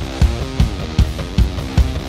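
Rock intro music with guitar and a steady kick drum beat, about two and a half beats a second.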